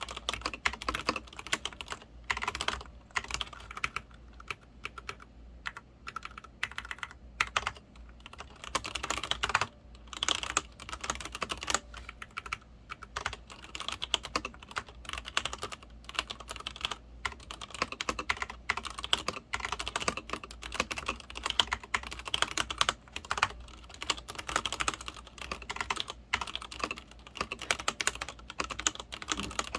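Continuous fast typing on a Leopold FC900R-PD full-size mechanical keyboard with Cherry MX Red linear switches: a dense, irregular stream of keystroke clacks as the keys bottom out, with a few brief pauses.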